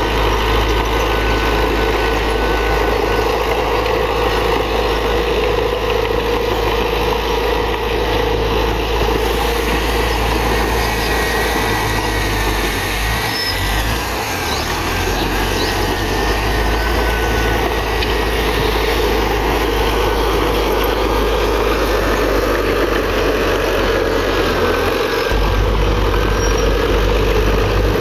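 Komatsu D31PX bulldozer's diesel engine running steadily, with a brief dip in level about halfway through.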